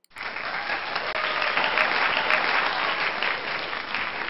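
Crowd applause, a dense steady clapping that starts suddenly.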